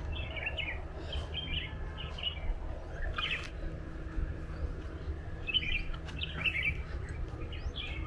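Birds chirping in short, quick repeated phrases, with many calls overlapping, over a steady low rumble.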